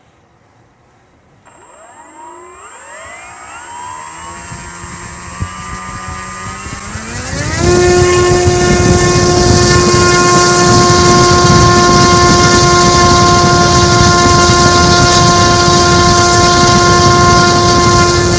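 G46 electric model-airplane motor spinning its propeller on a 5-cell pack. It throttles up slowly with a rising whine, then jumps to full throttle about seven seconds in and holds a loud, steady whine with propeller wash. At full throttle it draws about 55 amps and about 1,000 watts at roughly 10,500 RPM, within the motor's spec.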